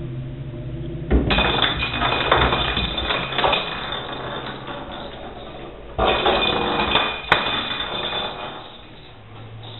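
A small plastic toy ball rolling and rattling around the floor of an empty bathtub as a kitten bats it. It comes in two spells, the first starting about a second in and the second about six seconds in, with a sharp click just after seven seconds.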